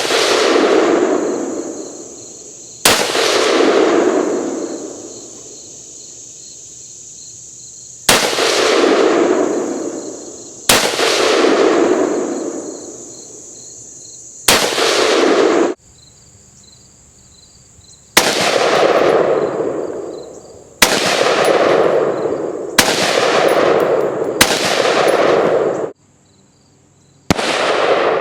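AR-15 rifle in 5.56 firing single shots, about nine spread over the stretch, a few seconds apart. Each sharp crack is followed by a long rolling echo lasting a second or more.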